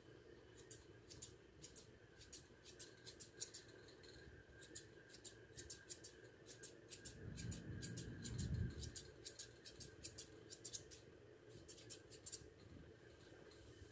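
Grooming scissors snipping through a standard poodle's long coat in runs of quick, crisp cuts, tipping the ends of the long hair. A low muffled rumble sounds about seven to nine seconds in.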